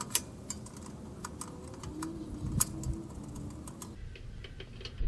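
Wrench working a brake line fitting on a rear axle: a string of irregular, sharp metallic clicks a few tenths of a second apart, with a dull knock about halfway through.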